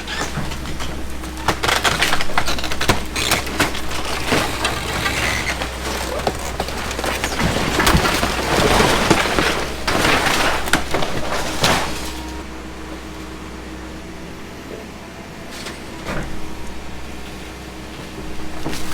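Wood framing cracking, snapping and splintering as a Komatsu 170 excavator crushes a house, over the steady hum of the excavator's engine. The breaking is densest for the first twelve seconds or so, then eases off to mostly engine hum, with a few more cracks near the end.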